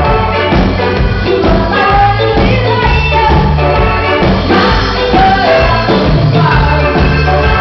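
Live band playing a song with a singer, loud throughout, over a steady bass line.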